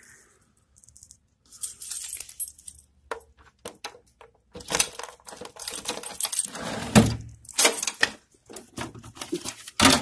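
A ring of keys jangling and a key clicking in the lock of a metal post office box, with the box's small metal door clacking open at the very end.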